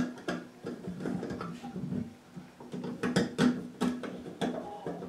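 A hand screwdriver turning the mounting screws of a recessed metal toilet paper holder, drawing the wall bracket tight behind it: irregular small clicks and scrapes of the driver in the screw heads and against the metal box, with a sharp click at the very start.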